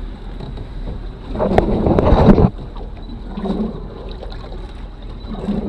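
Wind and water noise aboard a small boat at sea, with a loud rushing burst about one and a half seconds in that cuts off suddenly a second later.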